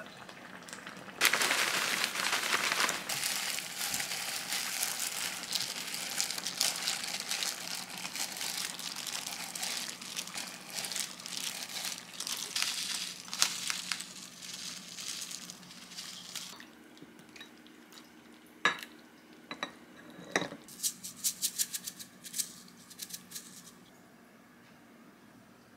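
Disposable plastic gloves crinkling steadily as hands mix seasoned rice in a glass bowl and roll it into balls. Then, after a couple of knocks, a quick run of sharp rattling taps as sesame seeds are shaken from a jar onto a dish.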